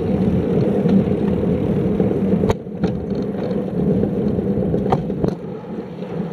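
Riding noise from a two-wheeler on a paved path: a steady motor hum with road rumble, and a few sharp knocks from bumps, about two and a half seconds in and again near five seconds.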